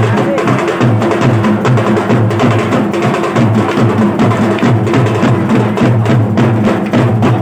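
Drums played loud and fast in a steady, unbroken rhythm.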